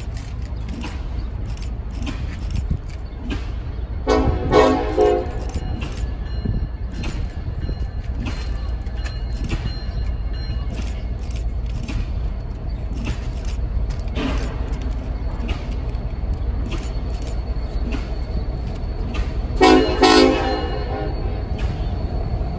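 Locomotive air horn sounding twice, briefly each time: about four seconds in and again about twenty seconds in, with several notes at once. A steady low rumble and clicking of a train runs underneath.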